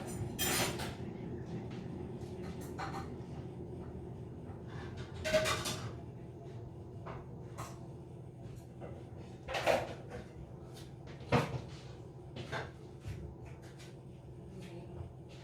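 Kitchen knocks and clatters, a handful of sharp sudden ones spread through, over a steady low hum.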